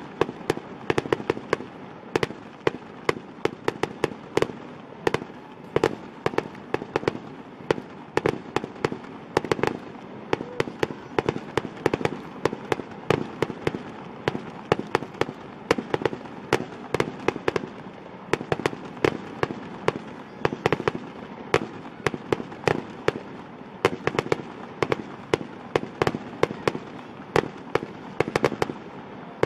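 Fireworks display going off in a rapid, continuous string of bangs and crackles, several reports a second over a steady rumble.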